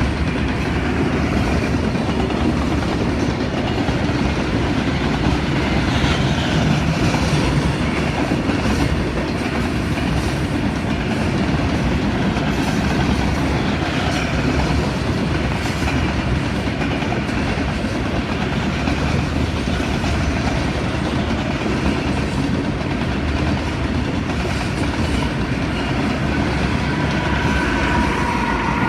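Freight train rolling past at close range: a steady rumble of railcars, with wheels knocking over the rail joints now and then.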